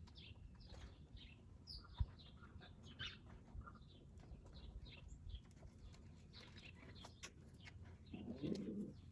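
Faint birdsong in a pigeon loft: short high chirps scattered throughout, with a click at about 2 seconds. A pigeon coos softly near the end.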